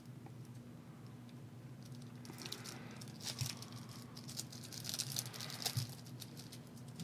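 2019 SAGE HIT football trading cards being handled and slid against one another: light crinkly rustling and clicking in two short flurries, about two and a half seconds in and again around five seconds.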